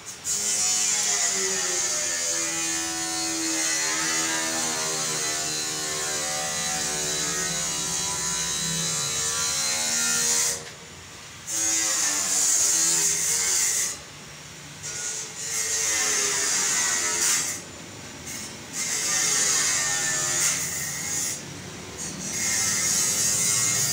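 Gas cooker burner running with a loud hiss of gas and flame, carrying a wavering hum for the first ten seconds or so. The sound drops away sharply several times and comes back as the gas valve is turned down and up again.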